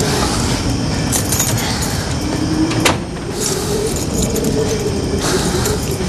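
A vehicle engine running steadily with road noise, and a sharp click about three seconds in.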